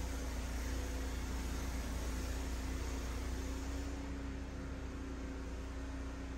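Ariens RapidTrack Platinum 28" SHO two-stage snowblower's engine running steadily with a constant hum, easing slightly quieter about four seconds in.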